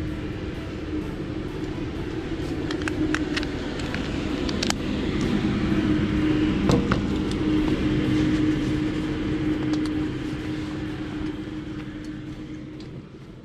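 A steady mechanical hum with a held low tone, growing louder toward the middle and then fading away near the end, with scattered footsteps on wet pavement.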